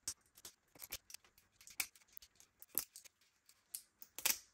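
Flush cutters snipping and snapping 3D-printed plastic support material off a printed part: an irregular string of sharp clicks and snaps, a few louder cracks among many small ones.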